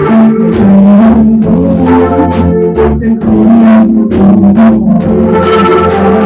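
Loud background music of held, overlapping notes that change every second or so.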